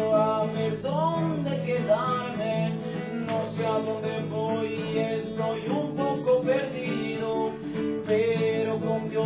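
Acoustic guitar strummed, with a man's wordless singing gliding over it in places.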